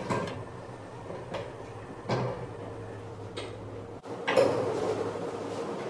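Spatula knocking and scraping in a frying pan on a gas hob: a few light knocks, the loudest near the end, over a steady low hum.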